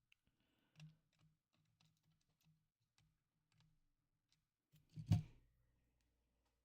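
Faint scattered clicks and light taps of small parts and tools being handled during reassembly of a handheld console, with one louder knock about five seconds in.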